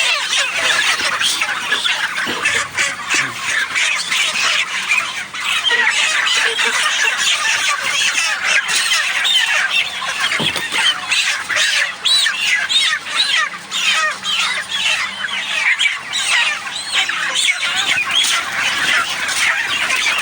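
A large flock of young chickens calling: many overlapping short peeps and chirps, steady and without a break.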